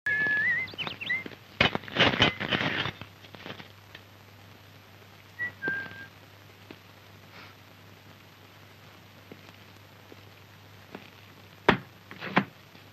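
A few short whistled notes, then a cluster of knocks and rattles about two seconds in. Near the end comes a sharp click and a thump as a suitcase is set down on a table.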